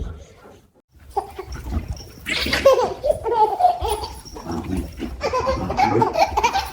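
A baby laughing in repeated bursts of giggles, starting about a second in.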